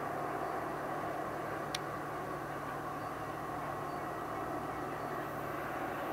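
Distant diesel-electric locomotive engine, KU-DE005 (DE36505), running with a steady drone as it comes through the station about a kilometre off, still out of sight. A single short click about two seconds in.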